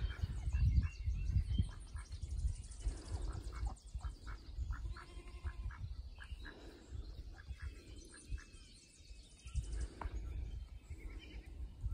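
Birds chirping and calling, including a run of short quack-like calls about five seconds in, over a low rumbling noise that is loudest near the start and again near the end.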